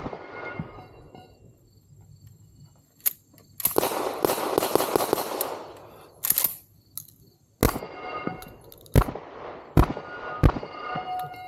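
Shotgun shots during a competition stage: one at the start, then after a pause a string of four about a second apart in the last few seconds, several followed by a brief metallic ringing. A longer rough, rustling noise comes in the middle, between the shots.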